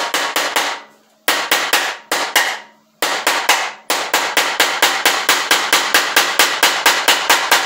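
Steel claw hammer rapidly striking a screw into a wooden board, about five or six blows a second, in runs broken by short pauses about one and three seconds in; the last run lasts the final four seconds. A screw driven with a hammer like a nail.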